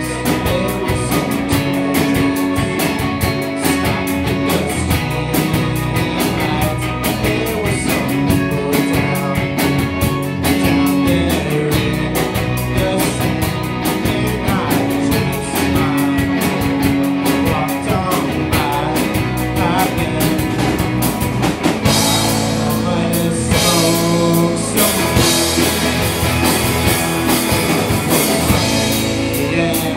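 Rock band playing live: electric guitar, bass and drum kit, with singing. About two-thirds of the way through, the drums come in harder with crashing cymbals and the sound grows fuller.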